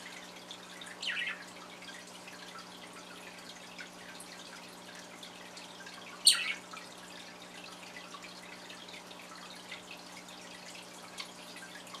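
Pet budgerigars chirping softly in their cage, with scattered small ticks, a short call about a second in and a louder, sharp chirp about six seconds in, over a faint steady low hum.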